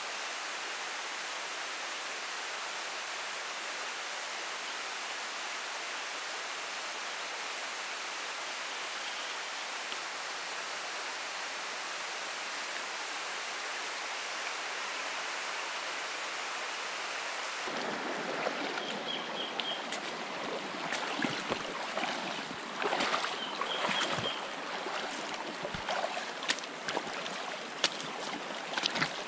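A steady, even rush of water; about 18 seconds in it changes to a shallow rocky stream under rain, livelier and uneven, with splashes and drips and two faint, brief high notes.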